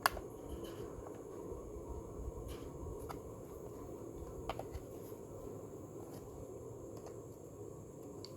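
A few faint clicks and scrapes of a tool working the small sheet-metal tabs that hold the face on a 12-volt analog car clock, bending them up, over a steady low hum. The sharpest click comes right at the start.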